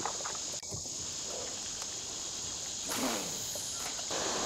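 Insects droning steadily in a high-pitched buzz, with a few faint knocks and a brief rustling noise about three seconds in.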